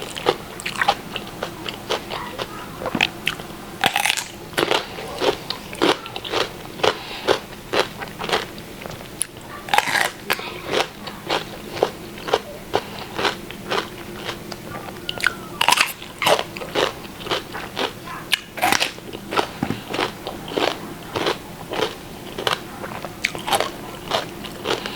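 A person chewing and biting a mouthful of stir-fried holy basil with hed phueng wan mushrooms: a steady run of short, wet crunches and mouth clicks, several a second.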